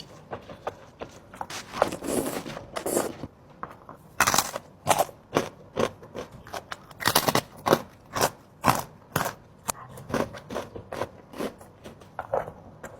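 A person chewing seblak, heard as a rapid, uneven run of short, sharp mouth clicks and chewing sounds.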